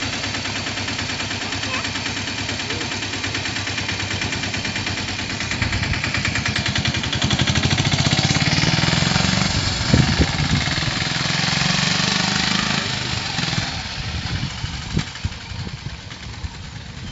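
Small vehicle engine idling with a fast, even putter. It grows louder for several seconds in the middle, then fades away near the end.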